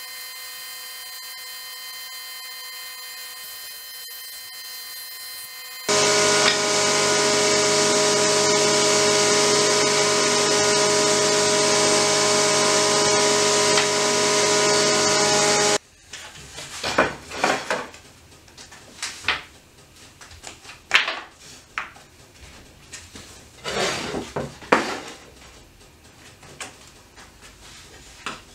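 A woodworking machine runs with a steady hum, then a much louder steady machine noise starts about six seconds in and cuts off abruptly around the middle. After that, thin wooden sticks knock and rub as they are set down and arranged on a wooden workbench.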